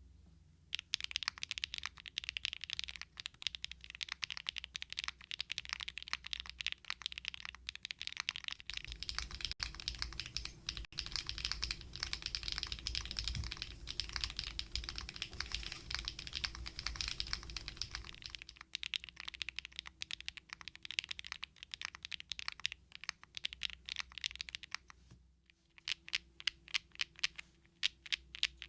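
Mechanical keyboard being typed on: a gasket-mounted TKD Cycle7 with a PP plate, stock HMX EMO linear switches and Domikey Ruby Cherry-profile ABS doubleshot keycaps, typed fast and steadily. After a short pause near the end, single keys are pressed one at a time in an even rhythm.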